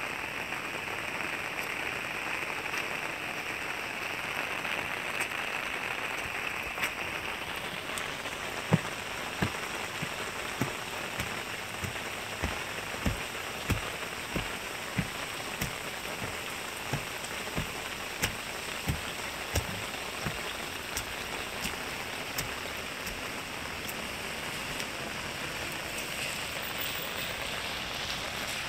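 Steady rain falling on wet pavement, an even hiss. From about a third of the way in until about three quarters through, soft low thuds come in a walking rhythm, roughly every 0.6 seconds: footsteps on the wet street.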